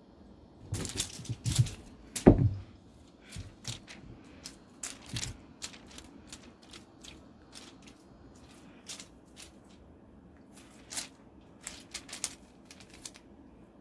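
A cat playing, making scattered clicks, taps and knocks in two bursts, with one louder thump about two seconds in.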